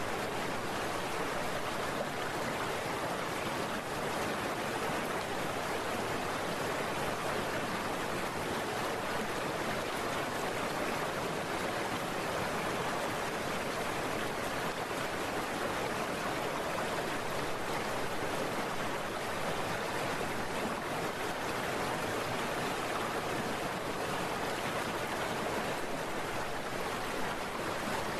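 Heavy rain, a steady hiss that does not change.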